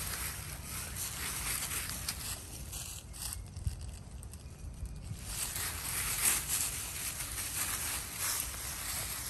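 Dry fallen leaves rustling as a dog and an otter scuffle and wrestle on them, with a quieter lull for a couple of seconds in the middle.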